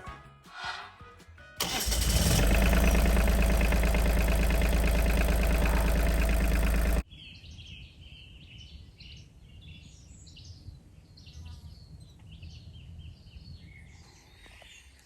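An engine running loudly for about five seconds, with a deep steady rumble, then cutting off abruptly. Afterwards birds chirp repeatedly over a quiet outdoor background.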